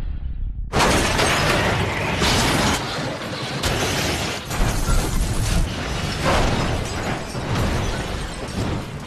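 An SUV rolling over on a road: a dense run of crashes of crumpling metal and shattering glass. It breaks in suddenly about a second in over a low rumble and eases off near the end.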